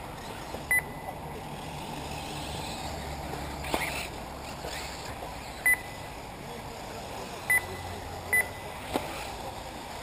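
Four short, high electronic beeps of a race lap-timing system, about a second in, then near the sixth, seventh-and-a-half and eighth-and-a-half seconds, over steady background noise. Two sharp clicks come between them.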